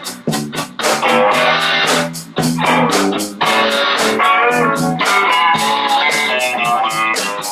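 Band playing a song: guitar over a steady beat.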